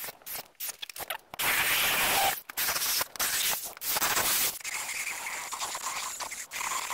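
Power tools working a wooden board: a drill boring through it and a jigsaw cutting. The sound comes in short snippets that stop and start abruptly, and runs steadier and quieter near the end.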